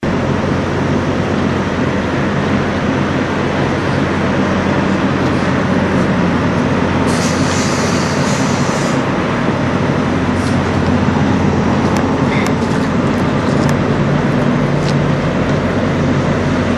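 Kenworth W900 semi truck's diesel engine idling with a steady low rumble. A hiss of about two seconds comes in about seven seconds in, and a few faint clicks follow later.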